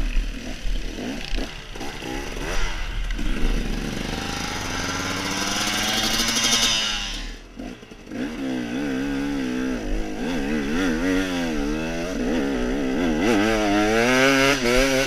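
Enduro dirt bike engine revving hard under load on a steep hill climb, its pitch rising and falling with the throttle. About halfway through it briefly drops off, then comes back with quick, repeated throttle blips that get louder near the end.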